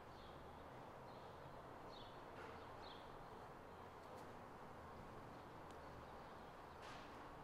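Near silence: faint room tone with a low hum, broken by a few faint, short high chirps and light ticks.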